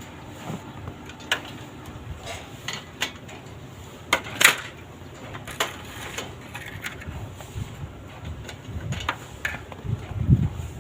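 Scattered metallic clinks and taps of hand tools, wrenches working the nuts and bolts of a UAZ's alternator mount. The sharpest clink comes about halfway through, and a low thump comes near the end.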